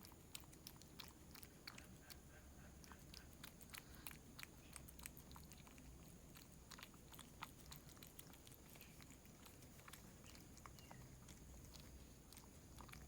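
A cat chewing food, with quick irregular chewing clicks, several a second.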